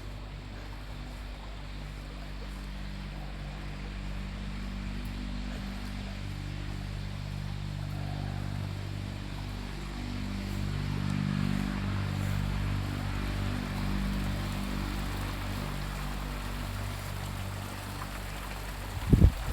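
A motor running steadily with a low hum that grows louder in the middle, and a sharp knock near the end.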